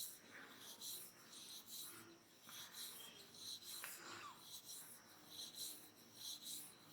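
Hands stroking and rubbing oiled skin during a back massage: faint soft swishing strokes, about two a second.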